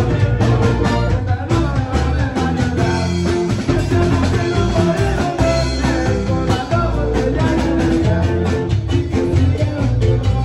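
Loud music with a steady beat and a heavy bass line.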